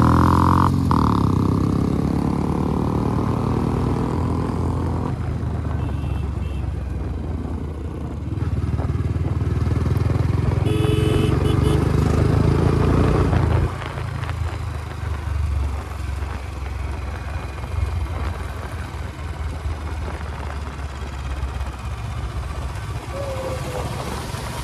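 Motorcycle engine working hard under load as the bike climbs a steep dirt slope off-road. The engine noise swells twice, then drops suddenly about 14 seconds in, leaving quieter engine running.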